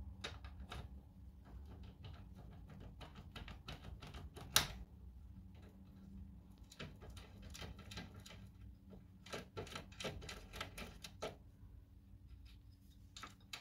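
Foil impressioning tool being turned and jiggled in a brass Tesa/STS cylinder lock, giving light, irregular metal clicks with one sharper click about four and a half seconds in and a quick flurry of clicks later on. The foil is being pressed against the lock's two rows of pins to impression and open it.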